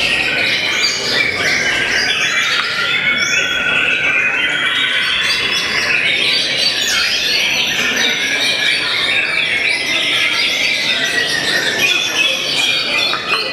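White-rumped shamas singing in a contest: a dense, unbroken stream of quick, varied whistled phrases, several birds' songs overlapping.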